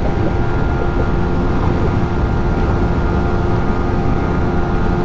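Yamaha MT motorcycle engine running steadily at cruising speed, a constant engine note with several steady tones, under heavy wind rush over the microphone.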